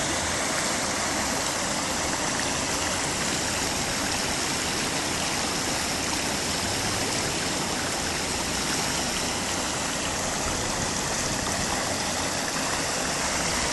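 Muddy floodwater rushing across a paved street in a flash flood from a cloudburst: a steady, unbroken rushing noise.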